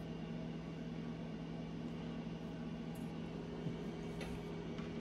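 Steady low electrical hum of a running household appliance motor, with a couple of faint small ticks.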